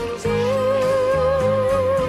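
Song music: a female singer holds one long note with vibrato, over a backing of bass and chords that change beneath it.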